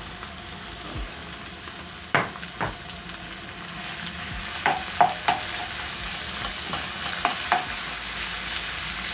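Cubed beef and chopped onions sizzling in oil in a large frying pan, a wooden spoon stirring them and knocking against the pan several times. The sizzle grows louder as the meat heats.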